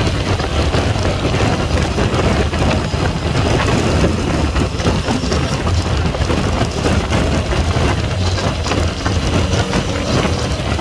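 Yamaha MT-09's three-cylinder engine running steadily at road speed, heard under heavy wind rush buffeting the on-bike camera's microphone.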